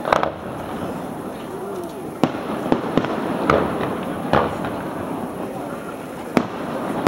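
Fireworks bursting: about eight sharp bangs at irregular intervals, some close together, over a steady background hum.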